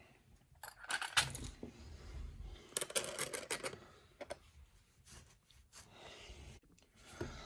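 Light metallic clicks and jingles of small padlock parts and tools being handled during disassembly, coming in short scattered groups with quiet gaps between.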